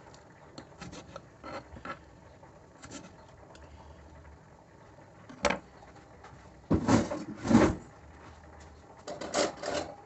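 Kitchen handling noises: a few light knife clicks on a chopping board, a sharp click about five and a half seconds in, then two loud rattling clatters around seven seconds and more rattling near the end.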